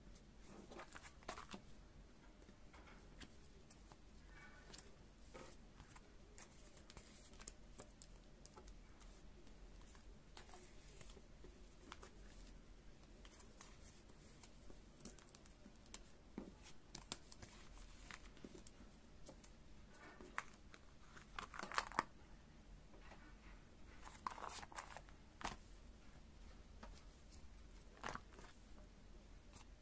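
Faint rustling and crinkling of clear plastic binder pocket sheets as photocards are slid in and handled, with scattered soft taps and clicks. The loudest rustles come about two-thirds of the way through.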